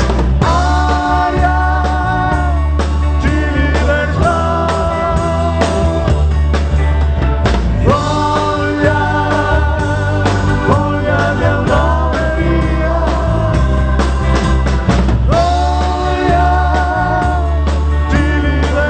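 A live pop-rock band playing a song, with steady bass and drums under a melody of long held notes that waver slightly.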